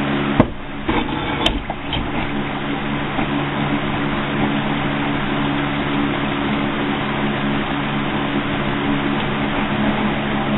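Steady electric hum and hiss from the heat-treat oven and workshop, with a sharp knock about half a second in, then a few lighter clicks, as the oven door is swung shut and the red-hot blades are handled over the motor-oil quench can.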